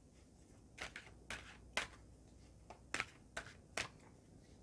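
Faint shuffling of a deck of crystal oracle cards in the hands: a few short, irregular swishes and taps of the cards.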